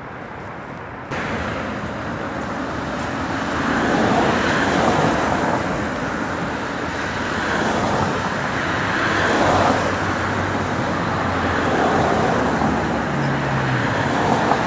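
Outdoor city noise of gusting wind and road traffic: a steady rushing that swells and eases, growing louder about a second in, with a low engine hum near the end.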